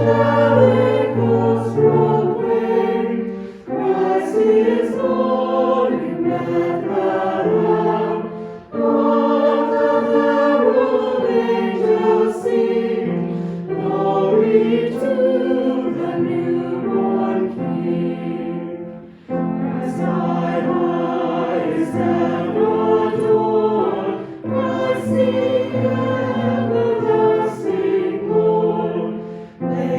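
Choir singing a hymn during a worship service, in phrases separated by short breaks.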